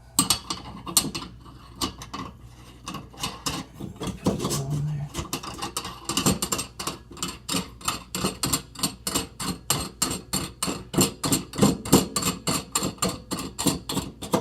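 Metal sink strainer parts clicking and clinking as the compression nut is handled and threaded on, with a fast, even run of clicks at about four a second from about six seconds in.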